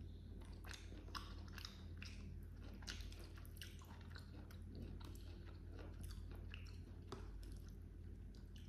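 Close-up chewing of a mouthful of rice with baby squid, heard as many short, irregular wet clicks, over a steady low hum.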